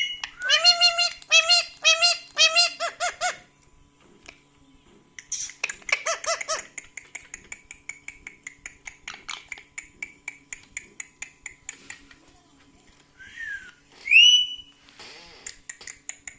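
A pet parrot mimicking laughter: a run of rhythmic 'ha-ha-ha' calls in the first few seconds, then a long string of quick, high chattering notes that slowly fade. Near the end comes a falling whistle, then a loud rising whistle.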